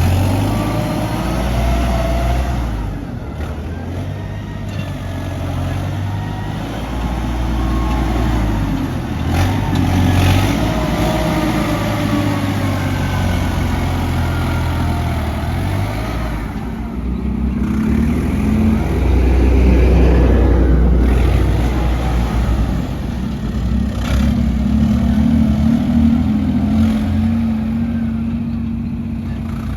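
Diesel engines of heavy earthmoving machinery, an excavator and dump trucks, running under load, with the engine pitch rising and falling several times as they rev and ease off.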